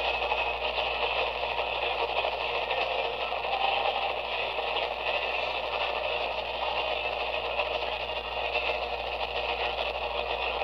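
AM radio reception from a portable receiver's small speaker: a steady hiss and crackle of static carrying a weak distant station, heard while listening for DX on 1430 kHz with the strong local nulled.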